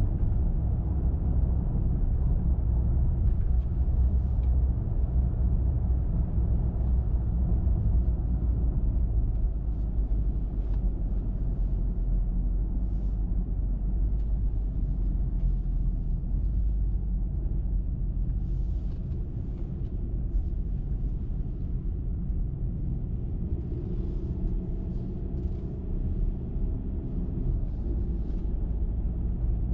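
A car driving at a steady speed: continuous low road and tyre rumble with engine hum, easing slightly after about twenty seconds.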